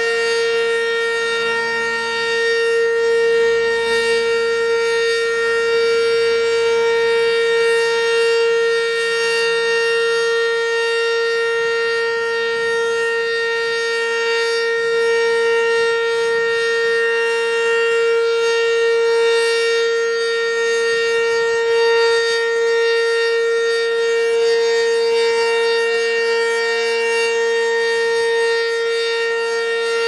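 Sentry 10V2T outdoor warning siren sounding during a test, holding a loud, steady alert tone at a constant pitch with no rise or fall.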